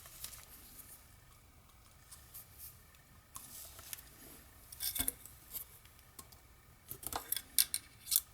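Scattered clicks and light rustling from small objects being handled, in two clusters: one about five seconds in and a quicker run of clicks near the end.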